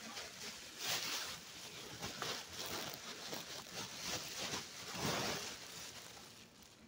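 Cloth rustling and rubbing against the phone's microphone as it is handled, in uneven scraping strokes, the loudest about a second in and near five seconds.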